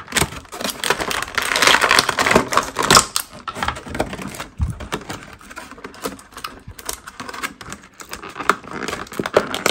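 Clear plastic blister tray of a toy's packaging crinkling and crackling as hands bend it to work the action figure and its accessories free: a dense, irregular run of clicks and crackles.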